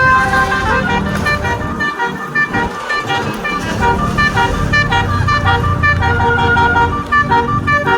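Bus telolet horn, a set of air horns switched in sequence, playing a quick tune of short stepped notes over the low rumble of the bus's engine.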